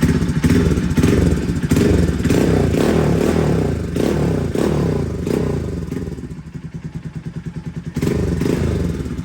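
Bajaj Pulsar NS200 single-cylinder engine running loud through a replica SC Project exhaust with its dB killer fitted, the throttle opened in several surges. It drops to a quieter idle about six seconds in and rises again near the end.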